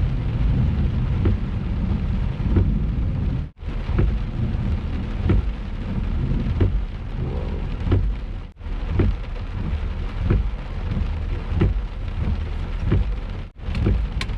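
Heavy rain pounding during a thunderstorm, with thunder rumbling under it. A regular faint tick recurs about every two-thirds of a second, and the sound cuts out briefly three times.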